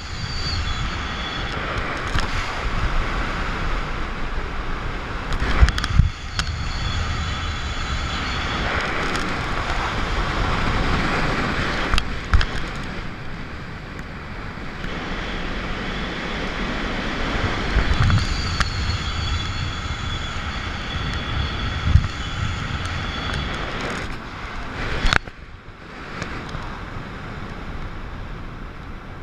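Wind rushing over a wrist-mounted camera's microphone during a parachute descent, swelling and easing every few seconds, with a faint high whistle at times and a few sharp knocks of the harness or camera handling.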